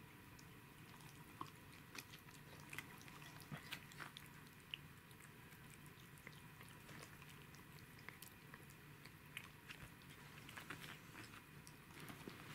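A cat chewing pieces of sashimi taken from fingers: faint, irregular wet smacks and clicks of its mouth.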